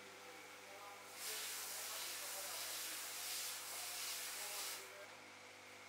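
Sandblasting cabinet's air-blast nozzle hissing as abrasive is sprayed onto a steel surgical instrument to strip it for restoration. One long blast starts about a second in and stops shortly before the end.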